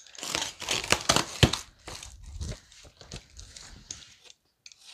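Box cutter slicing through plastic stretch wrap and tape on a cardboard box, the plastic crinkling and tearing in short, irregular strokes. It is loudest in the first second and a half.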